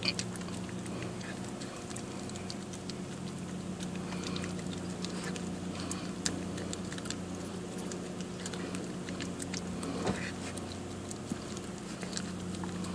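A small dog lapping and licking soft-serve ice cream from a cone, eating fast: a quick, uneven run of wet licking and smacking clicks over a steady low hum.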